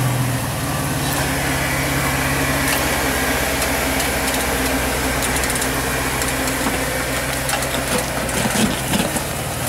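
Jeep Wrangler TJ engine running steadily at low revs as the Jeep crawls over rock with its suspension flexed, with a few sharp knocks near the end.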